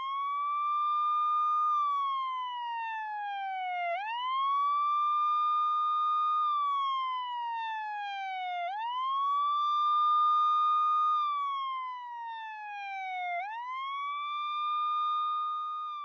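Emergency vehicle siren wailing: a single tone that sweeps up quickly, holds, then slides slowly down, repeating about every four and a half seconds.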